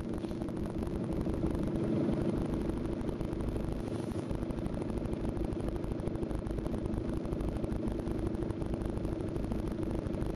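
Off-road 4x4's engine running steadily at low revs.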